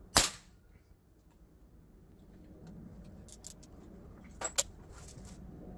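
A single sharp shot from a Schofield-replica CO2 pellet revolver (4.5 mm / .177) just after the start. About four and a half seconds in come two quick metallic clicks as the top-break revolver is handled and opened.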